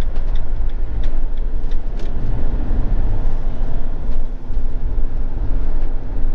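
Motorhome driving along a road, heard from inside the cab: a steady low rumble of engine and tyre noise, with a few light, evenly spaced ticks right at the start.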